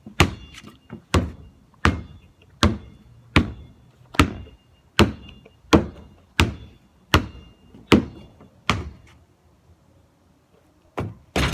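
Basketball being dribbled, a steady bounce about every 0.7 seconds, around a dozen times. It stops for a couple of seconds near the end, then a few more bounces follow.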